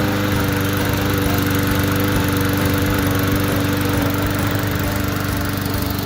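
Small lawn mower engine running at a steady speed.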